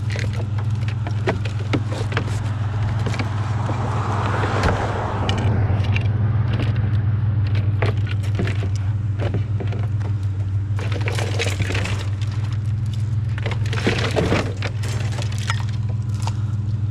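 A vehicle engine idles with a steady low hum, while scrap items are handled with repeated clinks, rattles and scrapes. A broader noisy swell rises and fades about four to six seconds in.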